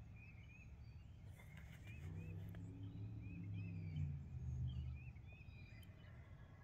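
Small birds chirping over and over, faint. About two seconds in, a low steady drone swells up and fades again about three seconds later.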